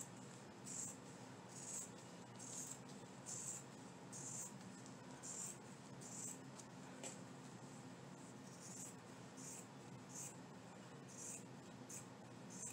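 Scissors cutting across fabric in a run of quiet, short snips, about one a second.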